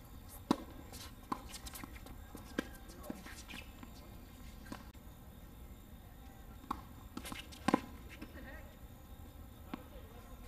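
Tennis balls struck with rackets and bouncing on a hard court during doubles play: sharp pops a second or so apart for the first few seconds, then another burst of hits about three-quarters of the way in, the loudest a close pair.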